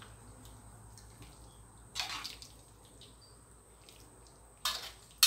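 Spatula scooping saucy stir-fry out of a wok onto a plate: two brief wet scrapes, about two seconds in and near the end, with a sharp clink of metal at the very end.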